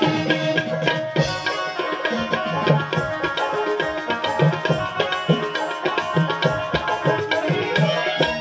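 Indian folk dance music: a hand drum beating a quick, steady rhythm of low pitched strokes under sustained keyboard notes.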